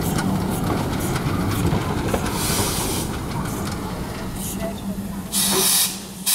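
Small steam tank locomotive rumbling slowly past with a passenger coach, wheels clattering on the rails. Steam hisses out in bursts: a shorter one about halfway and a loud one near the end.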